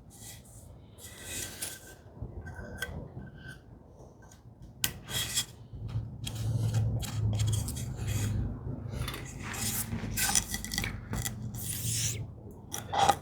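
Irregular rubbing and scraping strokes of a small wooden stick spreading glue over a wooden joint, busier and louder from about five seconds in, over a faint low hum.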